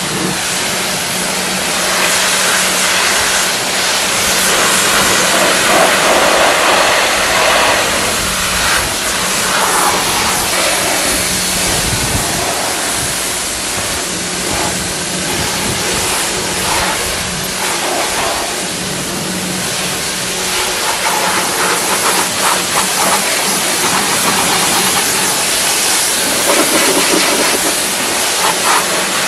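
Pressure washer jet spraying water onto a car's body panels: a steady hiss that shifts as the spray moves across the surfaces, over the pressure washer's pump motor humming at one steady pitch.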